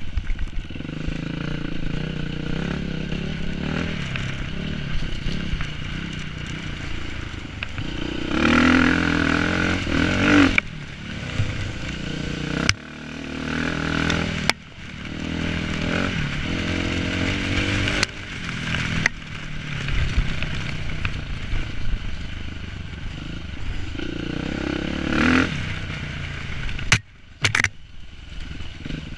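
Enduro dirt bike engine recorded from the rider's helmet, revving hard and easing off again and again as it is ridden over rough ground, with a few sudden throttle cuts.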